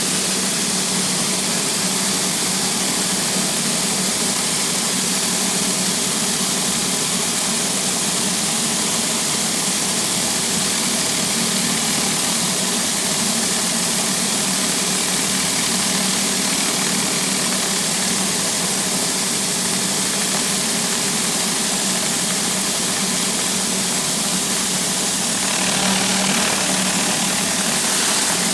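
Pressure washer engine running steadily under a constant hiss of high-pressure water spray, growing a little brighter near the end.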